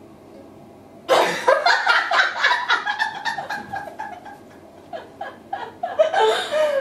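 Two women laughing together. After a quiet first second a burst of rapid, repeated laughter breaks out, trails off past the middle, and builds again near the end.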